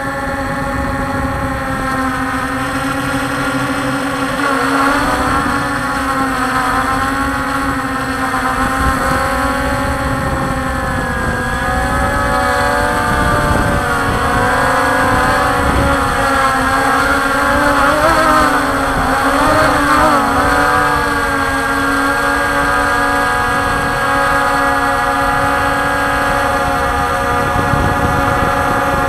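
Multirotor camera drone's motors and propellers, heard from its onboard camera: a steady multi-pitched whine whose pitch bends up and down as the drone manoeuvres, most markedly a little after ten seconds and again around twenty seconds in. Wind rumbles on the microphone underneath.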